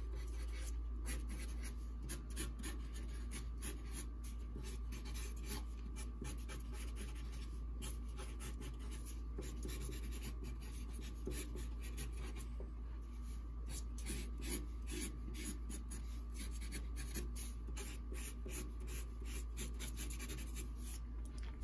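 Sharpie marker scratching across drawing paper in quick, irregular sketching strokes, over a steady low hum.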